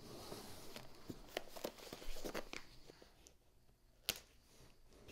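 Cardboard and plastic packing being handled: quiet rustling and crinkling with scattered light clicks and taps, and one sharper click about four seconds in.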